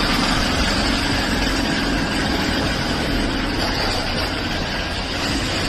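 Steady motor-vehicle engine and road noise, running evenly throughout.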